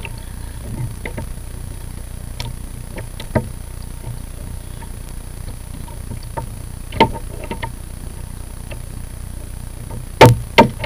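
Steady low rumble of wind and choppy water on a kayak-mounted camera, broken by a few sharp knocks on the plastic kayak. The loudest two knocks come close together near the end.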